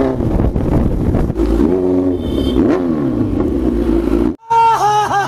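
Kawasaki Z900's inline-four engine running and revving up and down a few times, over a heavy low rumble. A little over four seconds in, the sound cuts off abruptly and music begins.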